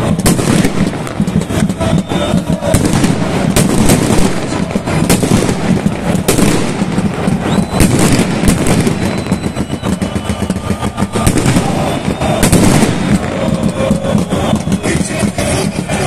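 Firecrackers going off in a rapid, irregular string of sharp bangs over loud crowd noise.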